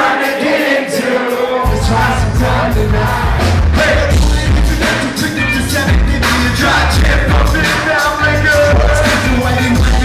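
Live band playing a song with a singer's vocals, recorded from within the crowd; the heavy bass and drums come in about two seconds in.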